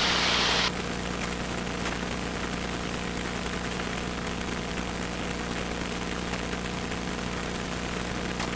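Single-engine piston airplane's engine and propeller droning steadily, heard from inside the cockpit. Over it, a loud hiss cuts off abruptly under a second in.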